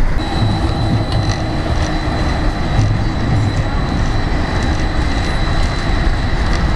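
Stadler Minsk B85300M low-floor tram pulling away on its track: a steady running rumble with a thin, constant high whine and a few faint clicks.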